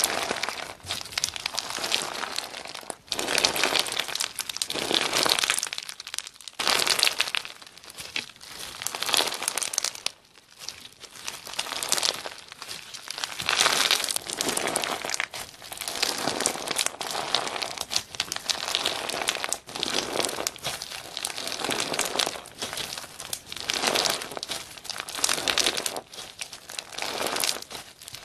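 Hands squeezing and kneading crunchy bead-filled slime, in repeated squeezes every second or two, with a few short pauses.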